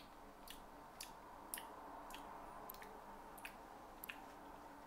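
Faint, juicy mouth clicks of someone chewing dragon fruit (pitaya), about two a second.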